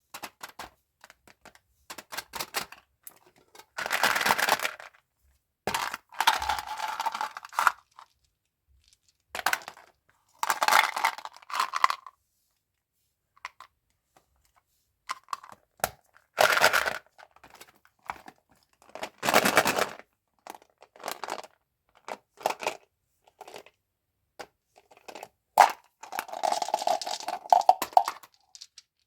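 Candy wrappers and plastic packaging crinkling and tearing open in short bursts, with scattered clicks and taps and pauses of silence between.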